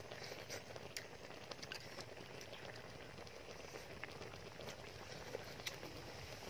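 A person chewing and smacking food with wet mouth sounds, dotted with small irregular clicks.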